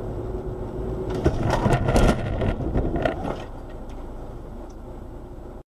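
Car driving with steady road noise, then a collision: a run of bangs and crunches from about one to three and a half seconds in, loudest around two seconds. The steady noise then goes on lower and cuts off suddenly near the end.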